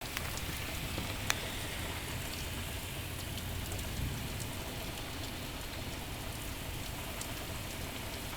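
Heavy rain falling steadily, with scattered ticks of individual drops and one sharp click about a second in.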